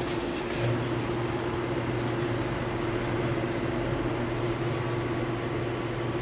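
Steady mechanical hum, with a lower hum coming in about half a second in and holding steady.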